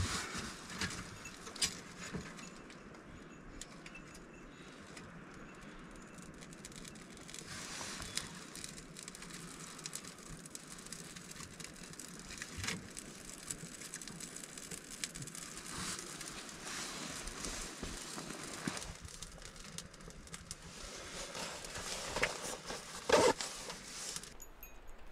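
Kindling catching and crackling in the open firebox of a small camp wood stove, with scattered sharp pops and clicks and one louder knock near the end.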